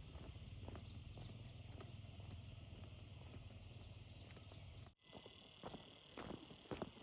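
Faint, steady high-pitched drone of insects, likely crickets or cicadas, with scattered light clicks and rustles. The sound cuts out briefly about five seconds in, then resumes.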